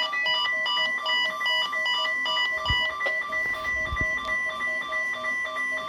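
A NOAA Weather Radio's steady 1050 Hz warning alarm tone sounds from a Midland WR30 weather radio's speaker. Rapid stepped beeps, about three a second, pulse over it, and the highest beeps stop about three seconds in. Two low thumps come a little past the middle.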